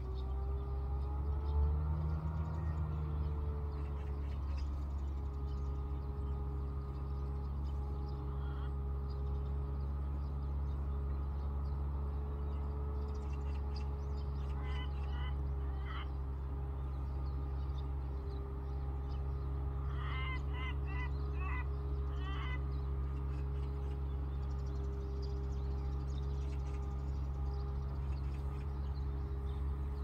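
A steady low hum with a faint held tone over it, and a bird giving two short runs of quick harsh calls, about halfway through and again some five seconds later.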